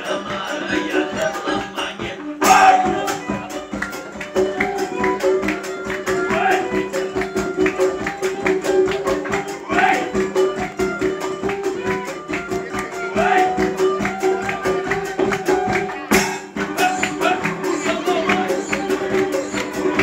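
Live band music with a fast, steady percussion beat over held, droning notes. There is a loud hit about two and a half seconds in.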